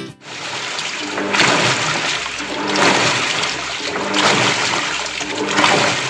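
Water churning in a Panasonic top-load washing machine tub during a tub-cleaning cycle, a steady rush that surges in waves about every second and a half.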